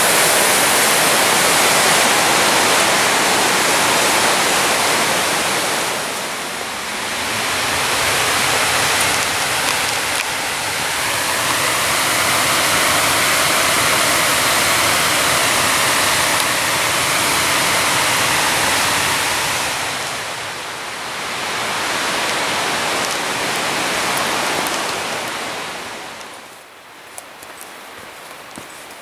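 Whitewater creek pouring down a waterfall: a steady, loud rush of water that dips briefly twice. Near the end it falls away to a much quieter hiss with a few faint ticks.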